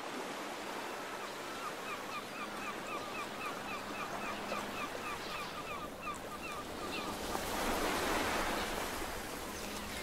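Steady rush of flowing water, swelling a little about eight seconds in, with a small bird repeating a short chirp about four times a second from about two seconds in until about seven seconds in.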